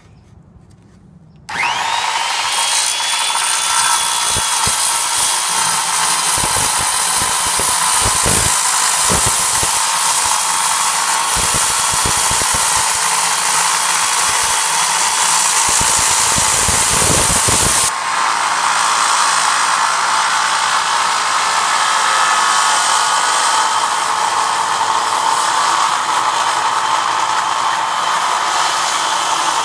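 Bosch circular saw cutting through aluminum plate lubricated with soapy water, starting up about a second and a half in and then running steadily through the cut.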